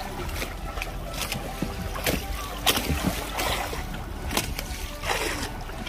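Sea water slapping and splashing against a small fishing boat, with scattered knocks and clicks on board over a steady low rumble.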